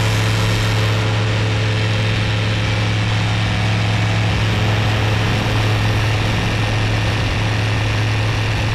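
Rans S-7S light aircraft's engine and propeller running at a steady, even drone as the plane rolls down the runway on its departure.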